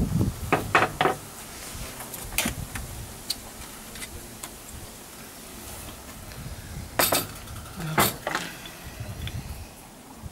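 Manual large-format tile cutter being worked on 9 mm porcelain tile: scattered metallic clicks and clinks, with two sharper knocks about seven and eight seconds in.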